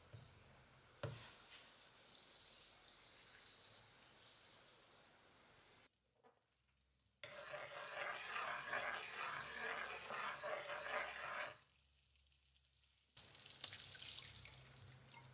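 Butter melting and sizzling in hot oil in a nonstick frying pan, stirred with a spatula, with a tap of the spatula on the pan about a second in. In the middle the foaming butter sizzles louder as it is stirred, and the sound cuts out twice. Near the end beaten eggs are poured into the hot butter and sizzle.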